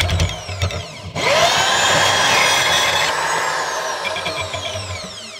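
Makita 2107F portable bandsaw cutting 4 mm aluminium alloy plate clamped in a vise. It chatters and rattles for the first second, dips briefly, then cuts steadily with high ringing tones that slowly fall in pitch, and eases off near the end. The chatter comes from the work bouncing where it is not held tight enough.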